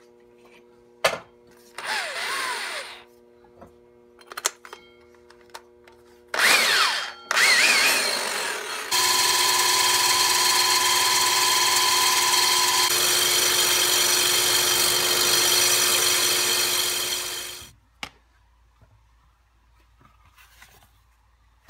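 Hand-held electric angle grinder grinding metal: a few short bursts at first, then a steady high whine with a harsh hiss for about nine seconds before it winds down and stops.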